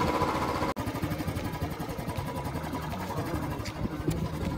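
Royal Enfield Bullet's single-cylinder engine running steadily as the motorcycle rides along, with a brief sharp dropout less than a second in.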